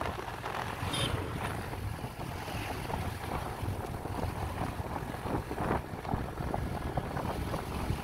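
Wind buffeting the microphone over the steady rumble of a moving vehicle on the road.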